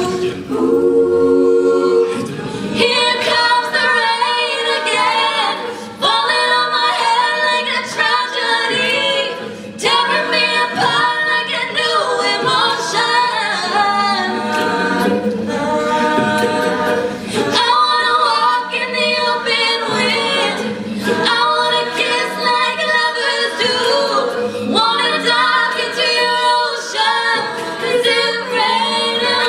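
Mixed youth a cappella group singing: a female lead on a handheld microphone over layered backing voices, with no instruments. The voices thicken and get louder about two seconds in.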